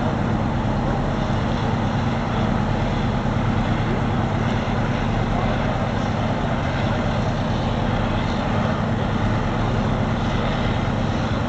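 Fire truck engine running steadily, a constant low drone under a wash of outdoor noise, as it pumps water to the aerial ladder's stream.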